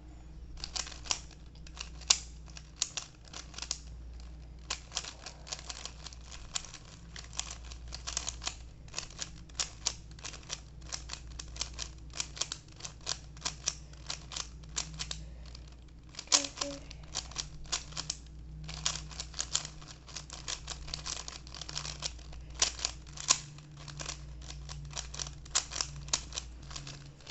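3x3 Rubik's cube layers being turned by hand in the final step of the solve: rapid runs of small plastic clicks and clacks, several a second, with a couple of short pauses.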